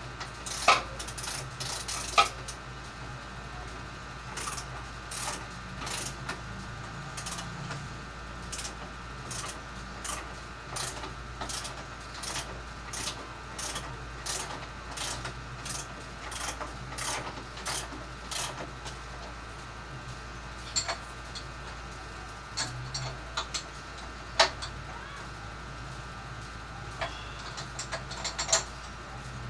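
Ratcheting wrench clicking as it is worked back and forth on a scooter's front axle nut, in a steady run of short clicks about one to two a second. A few louder sharp metallic clicks stand out about a second in, around two seconds in and in the last third.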